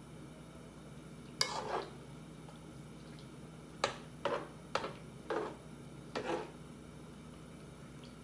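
A utensil stirring tteokbokki in a cooking pot, in about six short scraping strokes against the pot: one about a second and a half in, then five in quick succession a few seconds later. A steady low hum runs underneath.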